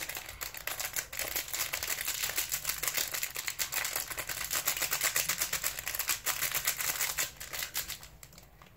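Slime packed with small plastic eyes being squeezed and kneaded by hand, giving a dense run of crackling clicks. The clicking stops near the end.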